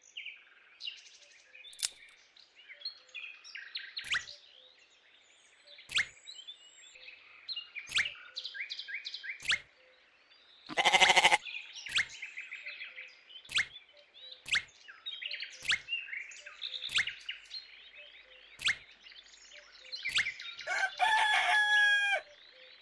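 Farmyard sounds: chickens clucking and small birds chirping throughout, with a loud call about eleven seconds in and a drawn-out call near the end. Sharp clicks come every second or two.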